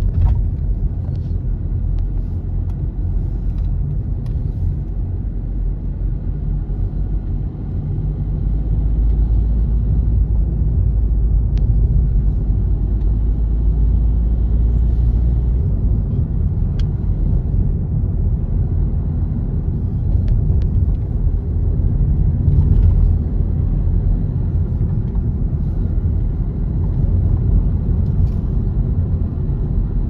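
Road and engine noise inside a moving car's cabin: a steady low rumble that grows louder after about eight seconds.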